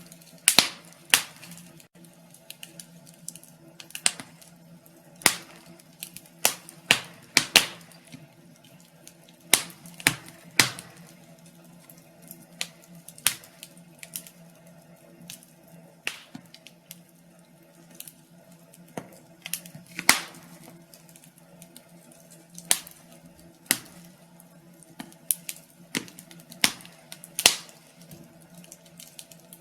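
Wood fire crackling in a fireplace: irregular sharp pops and snaps at random intervals, a few much louder than the rest, over a faint steady low hum.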